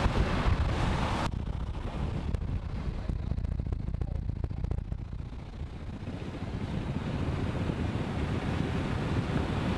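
Wind rushing over the microphone with the low rumble of a moving vehicle. About a second in the hiss cuts off sharply, leaving the rumble and a few light ticks, and the hiss builds back over the last few seconds.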